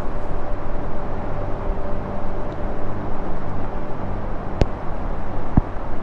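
Mountain river swollen with spring snowmelt rushing over rocks: a steady, full white-water rush. Two short clicks come through near the end.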